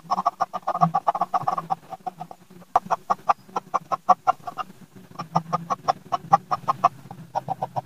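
Graphite pencil hatching on paper over a clipboard: quick back-and-forth scratching strokes, about eight a second, in runs of a second or two with short pauses between them.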